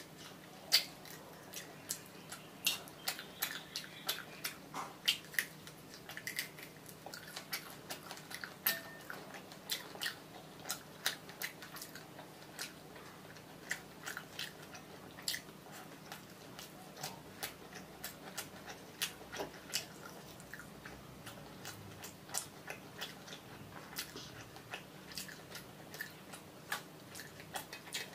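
Close-miked eating sounds: chewing a mouthful of rice and fried fish, with a steady, irregular scatter of sharp wet mouth clicks and smacks.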